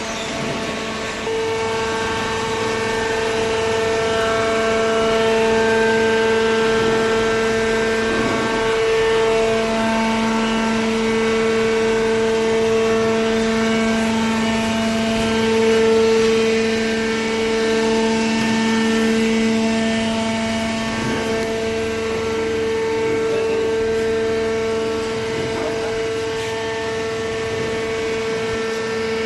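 Hydraulic baler running: a steady machine hum and whine from its motor and hydraulic pump, holding one pitch throughout.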